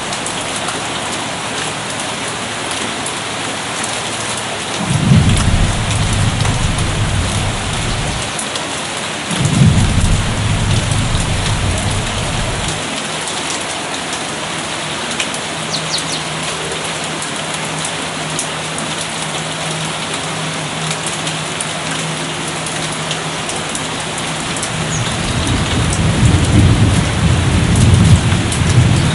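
Distant thunder over steady rain. Low rumbles roll in about five seconds in and again about four seconds later, each dying away over a few seconds, and a longer rumble builds near the end.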